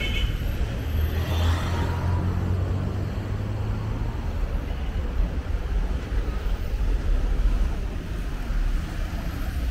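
Steady road traffic, cars passing with a low rumble, one vehicle louder between about one and four seconds in.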